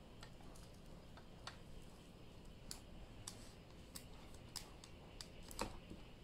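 Faint, irregular light clicks and taps, about ten of them spread unevenly, from plastic dolls being handled and knocked together.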